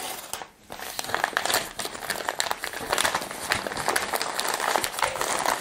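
Padded paper mailer envelope being cut open with a craft knife and pulled apart by hand: continuous crinkling and crackling, with a brief lull about half a second in.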